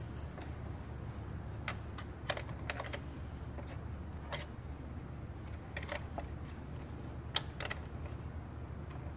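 Scattered light metallic clicks and taps of the bolt and nut on a lawn tractor battery's positive cable terminal being fastened by hand, irregularly spaced, over a steady low hum.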